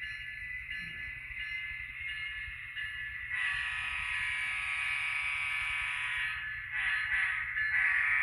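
Miniature diesel horn from the ESU LokSound sound decoder in a Kato N scale Union Pacific SD70ACe 1996, played through its small speaker over the decoder's steady engine sound. There is one long blast about three seconds in, a short one, then another blast near the end.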